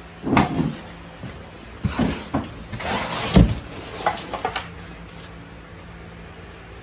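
A heavy CRI 2 HP monoblock pump and its cardboard box being handled: a run of knocks and scrapes, the loudest a deep thump about three and a half seconds in as the pump is set down on a plywood board, then a few lighter clicks.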